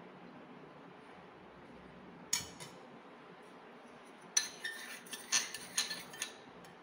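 A metal utensil clinking against a glass bowl as beaten egg is stirred. There is one clink about two seconds in, then a quick, irregular run of clinks through the last two and a half seconds.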